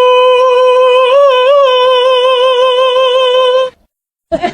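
One long held vocal note at a steady pitch, with a couple of small wobbles about a second in, cutting off suddenly near the end.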